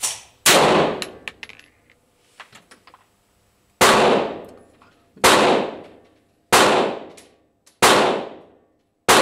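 Six pistol shots, each a sharp crack with a ringing decay. One comes about half a second in, then a pause with a few small clicks, then five more in steady succession about 1.3 seconds apart.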